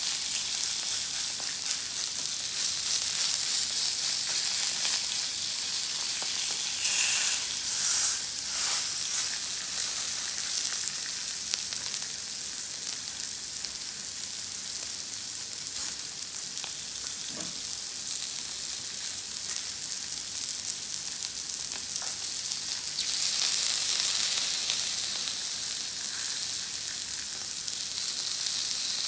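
Kingfish steak frying in olive oil on a ridged grill plate: a steady high sizzle that swells louder twice, about a quarter of the way in and again near the end.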